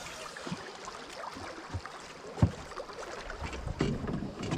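Water moving against a small fishing boat's hull on a river with strong current, with a few light knocks; the clearest knock comes about two and a half seconds in.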